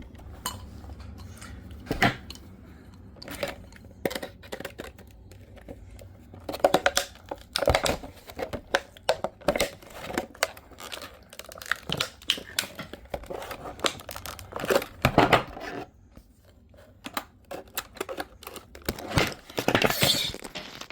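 Retail packaging being opened with tools: plastic and cardboard crinkling and tearing, with irregular clicks, knocks and clatter of tools and the packaging.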